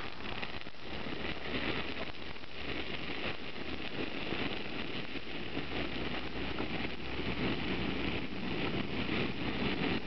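Campfire with a fresh evergreen branch catching fire: a dense, steady crackling and hissing that grows a little louder as the foliage flares up into tall flames.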